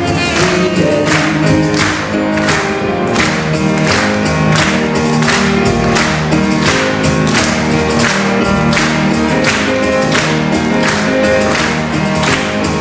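Live band music: grand piano, upright double bass, saxophone and percussion playing a song with a steady beat of about two strokes a second, with a woman singing.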